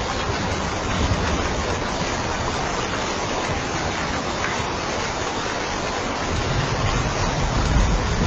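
Steady rain, a dense even hiss, with a low rumble that swells near the end.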